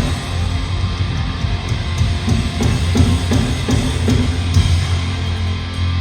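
Hardcore band playing live at full volume: electric guitars over a drum kit.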